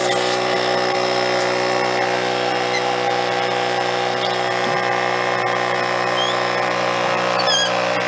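Small electric air pump running steadily at its maximum setting, blowing air into a golf grip so that it will slide onto the club shaft.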